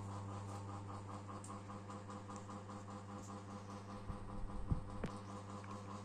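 GMC FC-06-600 600 mm mini ceiling fan running, its motor humming steadily under a rapid, even pulsing from the spinning blades; it is noisy and wobbly because one blade is badly bent. A few low thumps come about four to five seconds in.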